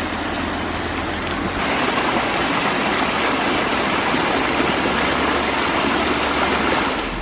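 Water splashing steadily down the rock cascade of a pondless waterfall.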